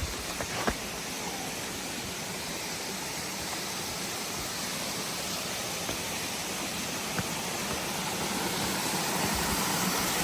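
Small waterfall rushing steadily, getting louder about eight seconds in, with a couple of sharp clicks in the first second.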